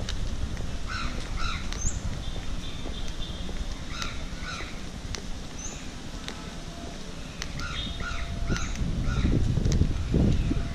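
Birds calling outdoors: short repeated calls in runs of two or three, about a second in, around four seconds in and again near eight seconds. A low rumbling noise swells near the end.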